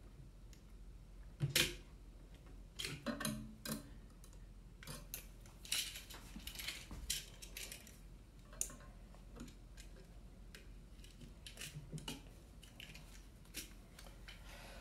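Needle-nose pliers and a dimmer switch being handled while bending a wire into a loop for a terminal screw: scattered light metal clicks and clinks, with a sharper click about one and a half seconds in.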